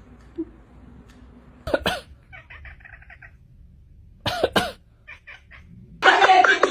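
A cat making two short calls, with a quick run of rapid short sounds between them; loud talking and noise come in near the end.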